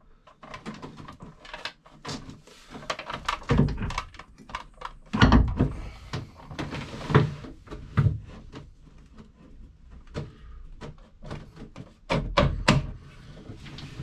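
Irregular knocks, clunks and scrapes of a bow thruster motor being set onto its mount and shifted around to test the fit, with the heaviest thud about five seconds in.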